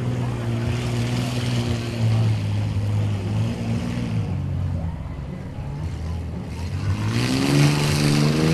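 A vehicle engine running steadily, then revving up with rising pitch about seven seconds in.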